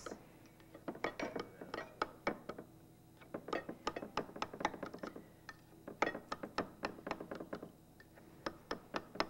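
A knife or spatula cutting and scraping through a baked dish in a glass baking pan, the blade giving a series of irregular clicks and taps against the glass.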